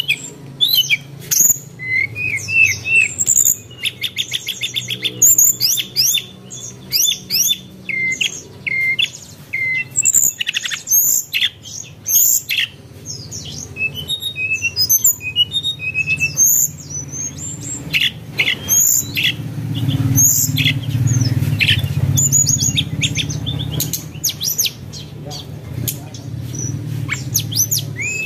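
Birds chirping and calling in quick, sharp notes, with rapid trills here and there, over a steady low hum.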